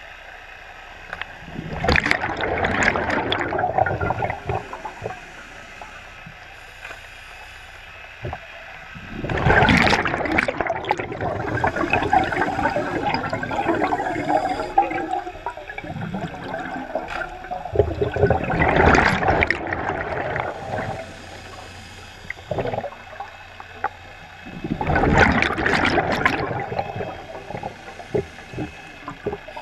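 Scuba diver's exhaled bubbles gurgling out of the regulator underwater: four bubbling bursts several seconds apart, each lasting a few seconds, with a quieter hiss between them.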